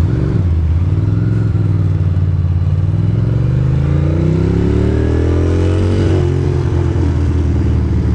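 Ducati Monster's L-twin engine pulling under throttle, its pitch climbing over a few seconds and then dropping sharply about six seconds in.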